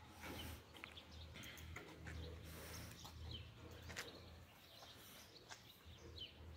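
Near silence: faint outdoor ambience with a few distant bird chirps and scattered soft ticks over a low hum.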